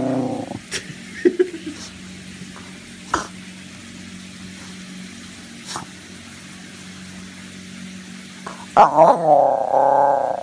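Basenji vocalising in play: a short, wavering growl-like moan at the start and a louder, longer one near the end lasting over a second, with a few soft clicks between.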